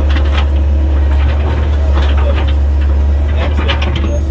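Komatsu 120 excavator's diesel engine running steadily under load, with three short bouts of harsh scraping and clatter, about half a second, two seconds and three and a half seconds in.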